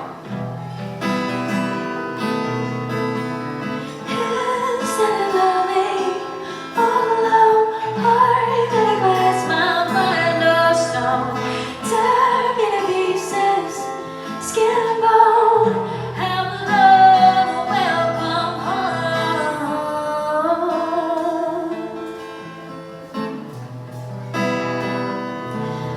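Acoustic guitar playing chords while a woman sings a wordless, gliding melody over it.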